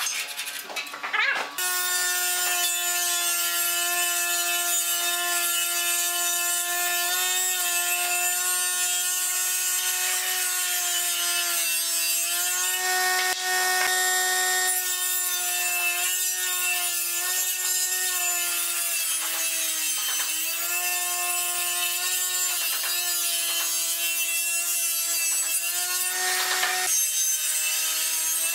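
Table saw of a combination woodworking machine running with a steady whine. Its pitch sags briefly a few times as the blade takes load in the wood. The first second and a half holds irregular clattering knocks before the saw sound sets in.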